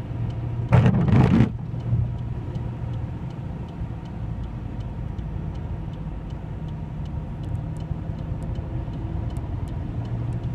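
Inside a car driving through a hailstorm: steady engine and tyre rumble on the wet, hail-covered motorway. About a second in there is a loud rushing burst lasting under a second, and light scattered ticks of hail hitting the car follow, more of them near the end.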